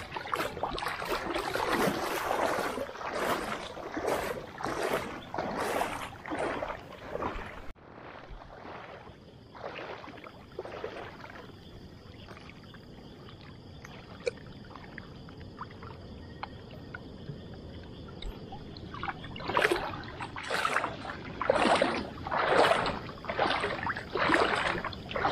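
Wading through shallow river water: a swish and splash of water with each stride, repeated at a steady walking rhythm. It stops suddenly about eight seconds in, leaving a quieter stretch with a faint steady high hiss, and the rhythmic splashing starts again near the end.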